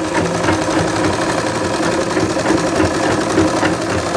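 Umbrella sewing machine running steadily and stitching cloth with a fast, even rhythm: a test seam run right after the bobbin-case thread tension was tightened.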